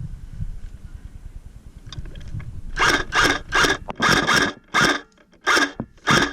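Airsoft electric rifle firing a string of about eight short bursts, starting about three seconds in, each burst a quick snap of the gearbox cycling, following a stretch of low rumble.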